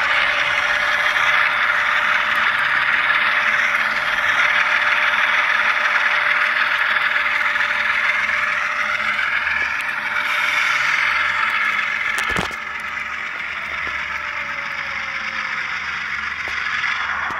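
Sound decoder of a ScaleTrains ES44 GEVO model diesel locomotive playing its engine sound through its small onboard speaker, a steady hiss with a whine that rises a little at the start and falls away near the end. A sharp click comes about twelve seconds in, after which the sound is a little quieter.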